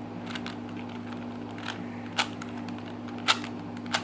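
A plastic Rubik's Cube being turned by hand in a speed solve: about half a dozen short, sharp clicks at uneven intervals, the loudest about two and three seconds in.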